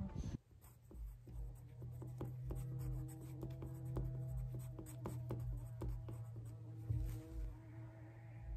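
Pencil scratching and tapping on paper at a desk, many short strokes over a steady low hum.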